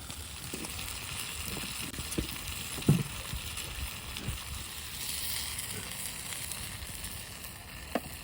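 Steady sizzling and crackling from a Uniflame wood-fired grill, with scattered pops; the loudest comes about three seconds in.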